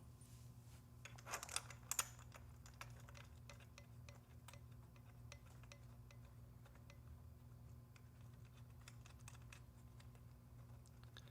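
Light metallic clicks and taps as the bike's stem faceplate bolts and washers are handled and threaded in by hand, with a short burst of louder clicks between about one and two seconds in and scattered faint ticks after. A low steady hum lies underneath.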